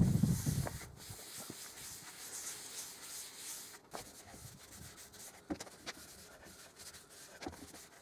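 Cloth wiping teak oil onto the wooden table legs: a soft rubbing with a few light knocks. A dull thump right at the start is the loudest sound.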